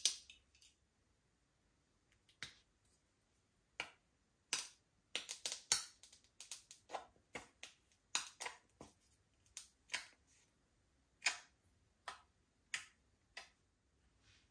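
Slime being kneaded and pressed by hand, giving irregular sharp sticky clicks and pops, sometimes single and sometimes in quick clusters.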